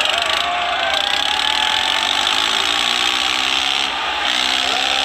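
Diesel tractor engines of a Swaraj 855 FE and a John Deere running flat out under heavy load in a tug-of-war pull, a harsh rasping noise. An engine pitch edges upward in the second half.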